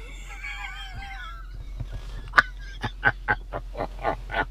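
A wavering, squealing high-pitched sound for about a second, then a man laughing in quick short bursts, about four a second.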